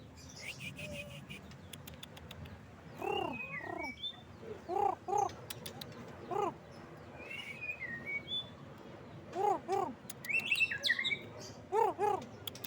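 White-rumped shama (murai batu) calling in short bursts: short arched notes in pairs, mixed with higher chirps and down-gliding whistles. A bird just beginning to come into song.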